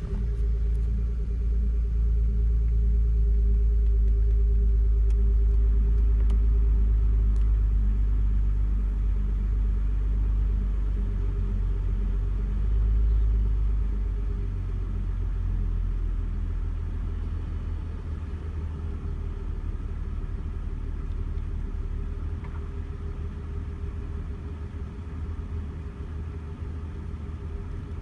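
BMW 325i E92's straight-six engine idling just after a cold start, with the misfire the owner is showing. It runs loudest in the first half, swells briefly about halfway through, then gradually quietens.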